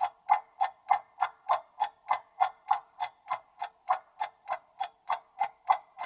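Countdown-timer sound effect: a clock ticking steadily, about three ticks a second.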